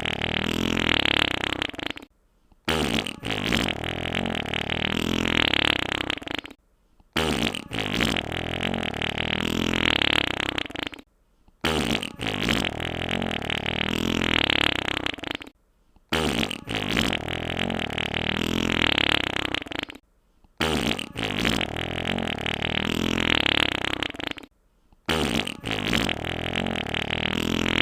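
Wet fart sound effect played on a loop: a fart about four seconds long, broken by a half-second of silence, then repeated, about six times over.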